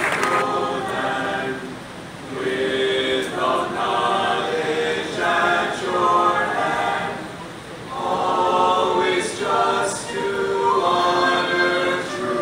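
A group of voices singing together without accompaniment, in phrases with short pauses between them; the tail of applause dies away in the first moment.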